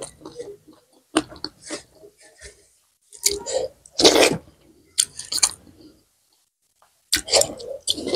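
Close-miked eating by hand: wet chewing and lip-smacking on a mouthful of rice and buffalo curry, with fingers squishing and mixing rice on the plate, in short irregular bursts with a brief lull a little before the end.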